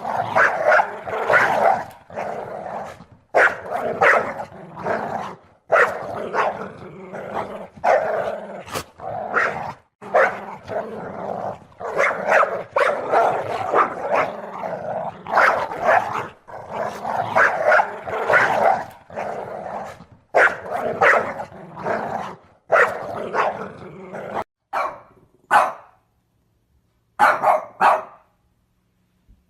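A dog barking over and over in quick, loud bursts, the barks thinning out with short pauses near the end.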